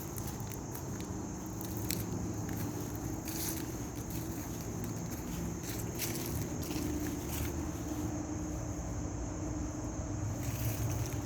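Outdoor ambience: a steady high insect drone, likely crickets, over a low constant rumble like distant traffic. Short scuffs or crunches, like footsteps, come here and there.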